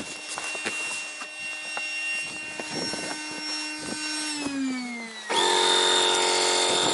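Electric boat pump running as it inflates an inflatable boat: a steady motor hum. About four seconds in its note sags lower, and a second later a louder, denser hum switches in abruptly. Light taps and knocks from handling come through the hum.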